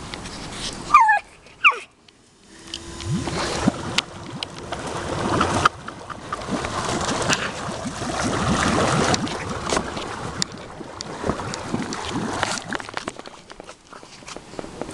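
A pug gives a short high whine about a second in. Then the hot tub jets start with a steady hum, and water churns and sloshes as the pug splashes at it. The sound eases off near the end.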